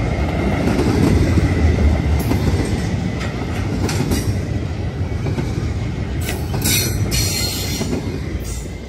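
Cars of a Canadian National intermodal freight train rolling past: a steady rumble of wheels on rail, with a few sharp knocks and clacks and a faint high wheel squeal. The rumble begins to fade near the end.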